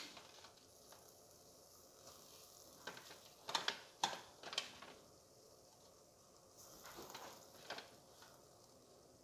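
Aluminium pot of corn soup simmering on a gas burner under freshly added malunggay leaves, with clusters of short crackling pops from the bubbling broth about three and a half to five seconds in and again around seven seconds.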